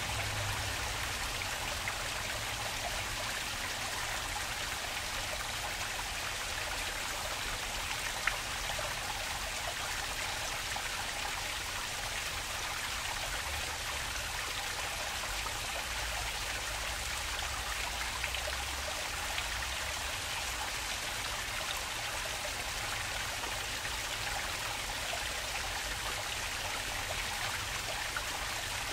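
Water flowing steadily in a stream, an even continuous rush with a low rumble underneath. A few brief sharp ticks of splashing drops stand out, the clearest about eight seconds in.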